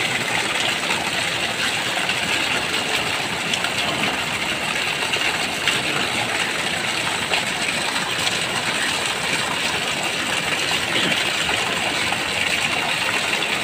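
A swollen river in flood rushing steadily, a continuous dense noise of muddy floodwater with rain falling.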